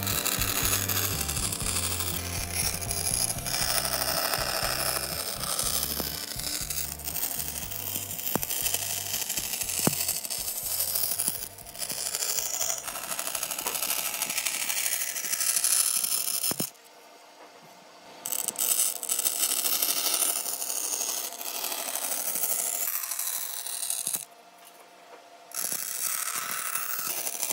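Woodworking tool sounds, a dense run of scraping and clicking work on wood. It drops out to near quiet twice, for about a second each time, near the middle and toward the end.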